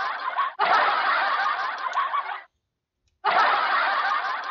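Recorded laughter sound effect, played again and again from a soundboard: about two-second clips of dense laughing that start and stop abruptly, with a dead-silent gap near the middle.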